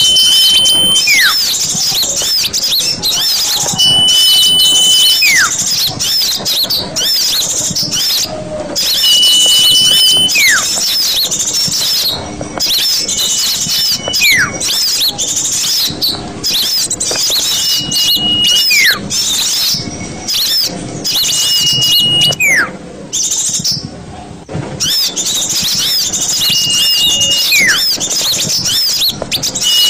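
Bird-lure call recording for small birds: dense, continuous high twittering of many small birds. Over it a clear whistle repeats about every four seconds, a held high note that then slides quickly down.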